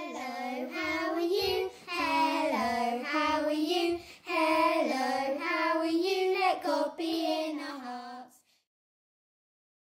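Intro jingle: a child's voice singing a short melody in three phrases, stopping about eight seconds in.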